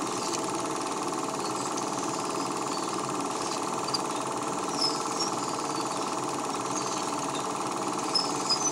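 Home-movie film projector running steadily, a fast, even mechanical whir, with a few small clicks near the end.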